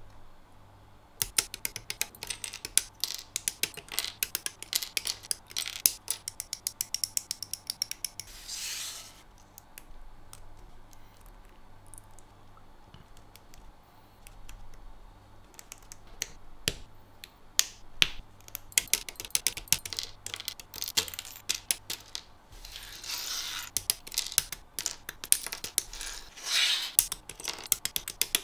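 Hobby side cutters snipping plastic model-kit parts off their runners, with the parts clicking and snapping as they are handled and fitted together. Many sharp clicks in quick succession, thinning out in the middle and picking up again later, with a few brief rustling rushes.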